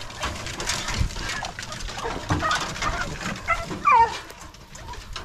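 Beagle pups yipping and whining in short, high, bending calls, the loudest about four seconds in, over the crunch and rustle of footsteps and paws in dry leaves and brush.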